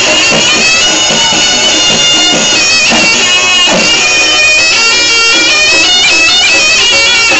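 Reog Ponorogo music led by a slompret, the double-reed shawm of the reog ensemble, playing a high melody of held notes that step up and down.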